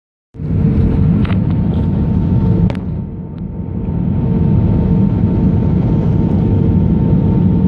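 Airplane engine and airflow noise heard from inside the aircraft: a steady loud rumble with a constant hum, with two sharp clicks in the first three seconds and a brief drop in level around three seconds in.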